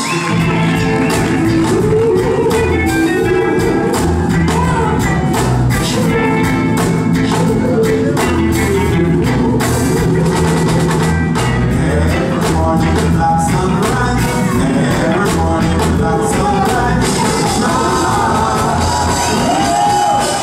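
A live roots reggae band playing, with a strong repeating bass line, drums and singing.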